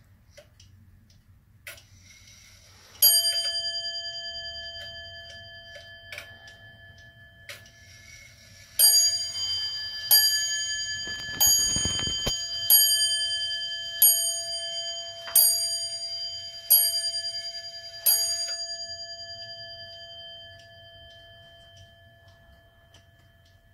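Hermle 8-day chain-driven wall clock striking on its brass bell: one strike about three seconds in, then, some six seconds later, eight strikes about one and a third seconds apart for eight o'clock. Each strike rings and fades, and the movement ticks faintly.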